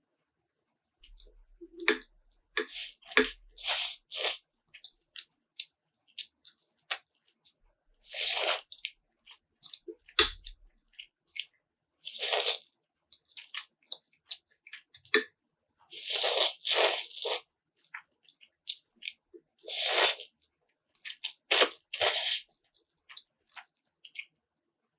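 Crunching and chewing of crispy food close to the microphone, in irregular loud crunches with short pauses between them.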